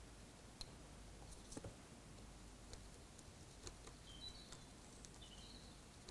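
Near silence: quiet room tone with a few faint, scattered taps and clicks as a small paintbrush works oil paint onto a model locomotive's underframe, and a couple of brief, faint high chirps past the middle.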